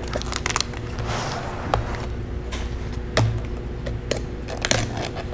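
Thin plastic takeout container lids being handled and pried open: irregular clicks, snaps and a brief crinkle of plastic, over a steady low hum.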